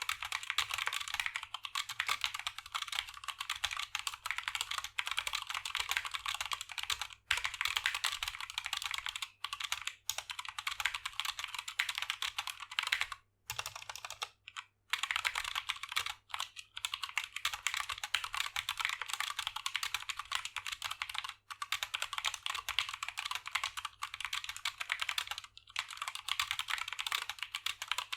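Fast, continuous typing on an SK61 60% mechanical keyboard with lubed Gateron Optical Brown tactile switches, an aluminium plate, a plastic case and XDA keycaps, broken by a few short pauses. The plate-mounted stabilizers add a ticking sound that the owner says is hard to fix.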